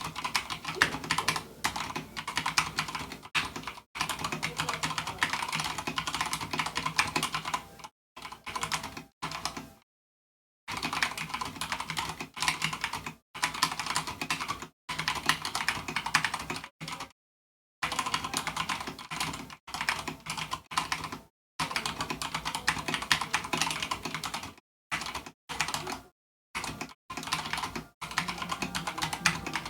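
Fast typing on an Akko 3087 mechanical keyboard with Cherry MX Red linear switches and PBT keycaps: a dense, continuous run of key clacks at about 80 words per minute, broken by a few brief pauses.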